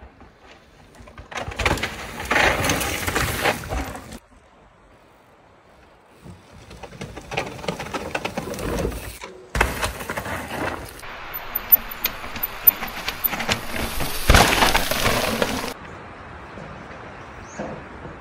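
Mountain bikes riding rough, loose trail: tyres crunch and skid over dirt and rock, with sharp clacks and rattles from the bikes. It comes in three passes, the third opening with a heavy thump about nine seconds in.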